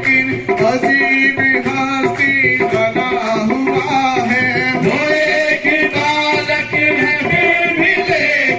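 Live qawwali music: tabla strokes keep a steady rhythm under a sustained, wavering melody line.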